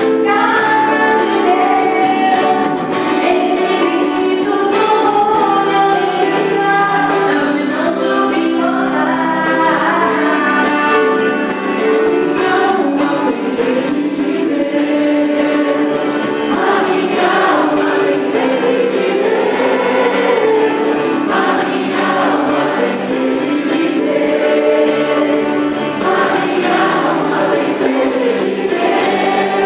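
Church choir singing a psalm in held, slowly moving chords.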